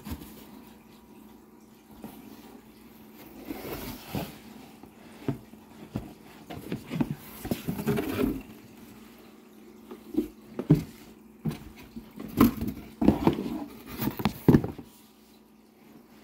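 Cardboard packaging being handled as a boxed camera is pulled out of a shipping carton: irregular scraping, rustling and sharp knocks starting about three seconds in and stopping shortly before the end, over a faint steady hum.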